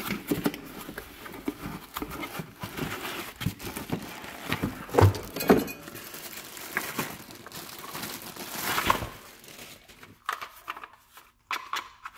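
Plastic bag crinkling and cardboard box and foam packing rustling as a new portable air compressor is unpacked by hand, in irregular bursts of crackle, louder about halfway through and again just before the end.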